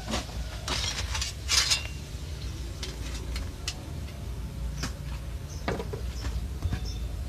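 Scattered light clicks and two short scraping sounds, the louder about a second and a half in, over a low steady hum.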